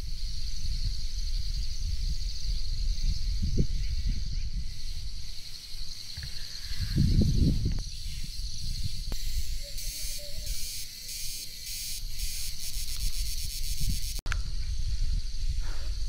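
Wind buffeting the microphone, with a stronger gust about seven seconds in, over a steady high chorus of insects. In the middle a second insect joins with a fast, even buzzing trill for a few seconds.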